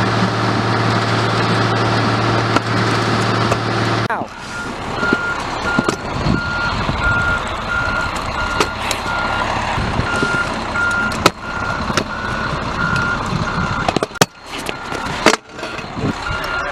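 A vehicle's engine runs steadily, then from about five seconds in its reversing alarm beeps over and over at an even pace. Sharp knocks and clacks sound in between.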